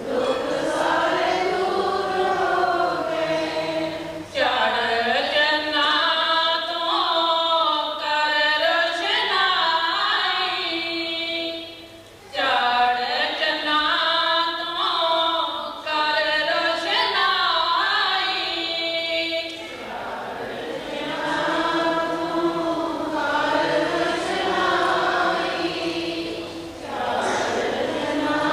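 A group of voices singing a devotional chant, with long held notes that glide in pitch and short pauses between phrases.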